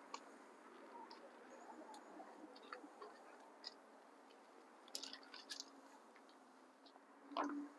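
Near silence with faint scattered clicks and rustles, a little busier about five seconds in, and a short louder rustle near the end.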